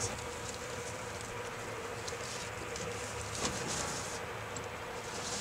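Outdoor ambience: a faint continuous hum under a steady hiss, with a few light rustles and ticks partway through.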